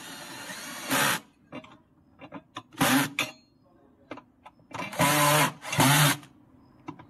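Electric screwdriver driving screws back in, run in four short bursts with small clicks of handling between.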